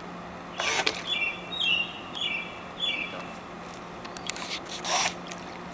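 Small RC boat's electric motors driving its propellers in short throttle pulses, churning the water in brief bursts, one about half a second in and another near five seconds. Between them a run of four short, high chirps, over a faint steady hum.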